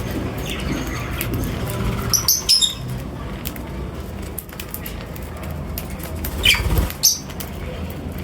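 Birds chirping, with a few short high calls about two seconds in and again near the end, over a steady low background rumble and scattered small clicks.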